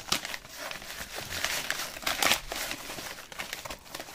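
Plastic packaging crinkling and rustling as a wrapped package is pulled out of a yellow padded mailer and handled, in irregular bursts, loudest about two seconds in.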